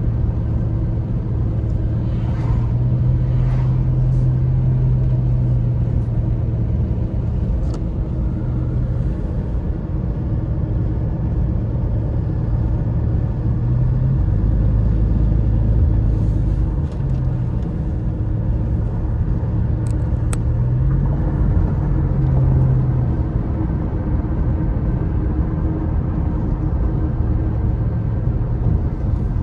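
Steady road noise inside a moving car: low engine and tyre rumble with a hum that shifts in pitch a few times, and air rushing in through a window cracked open.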